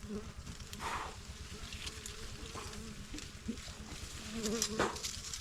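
Bees swarming around a smoked hive, a wavering buzzing drone that rises and falls as they fly past, with a couple of short rushes of noise, about one second in and near the end.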